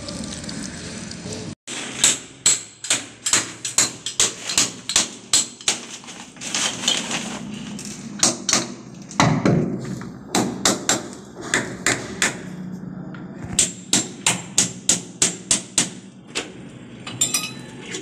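Hammer striking a chisel against a plastered wall, a quick run of sharp strikes about three a second with a short break midway. The wall is being chipped open to reach a leaking water pipe.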